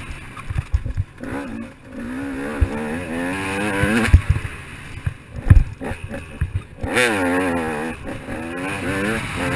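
KTM 200 XC-W two-stroke single-cylinder dirt bike engine revving hard while riding a motocross track, its pitch climbing and falling back several times, with the strongest climb about seven seconds in. Scattered low thumps sound under the engine.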